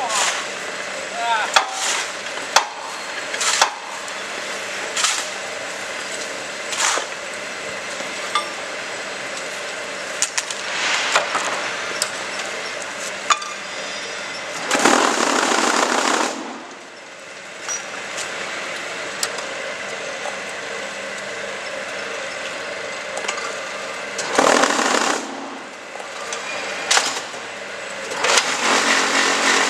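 QTJ4-26A concrete block making machine working through a cycle: scattered sharp metal knocks and clanks, with two loud bursts of noise, each a second or two long, about halfway and about three-quarters through, and steadier noise building near the end.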